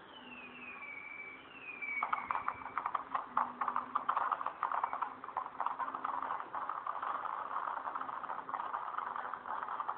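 Fireworks sound effect: two whistles falling in pitch, then dense, rapid crackling that takes over about two seconds in.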